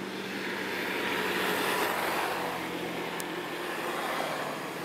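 A motor vehicle passing: a steady engine hum with road noise that swells to its loudest about two seconds in and then fades.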